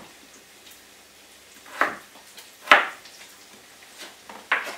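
Kitchen knife cutting through a raw potato onto a plastic chopping board: a few separate chops, the loudest about two and three-quarter seconds in.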